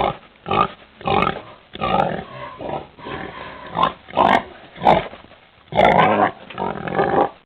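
A pig calling: a run of about a dozen short, rough calls coming a little under two a second, with one longer, louder call about six seconds in.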